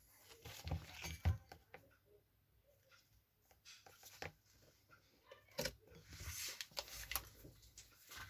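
Faint scattered clicks and short scraping sounds of hand work on a metal jar lid, with no steady motor running.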